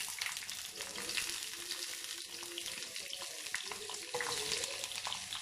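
Boiled baby potatoes sizzling as they shallow-fry in hot oil in a pan, a steady high hiss with small crackling ticks.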